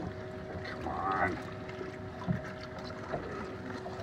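A boat's motor runs with a steady hum under a constant background rush. There are a couple of light knocks about two and three seconds in, and a brief mumbled voice about a second in.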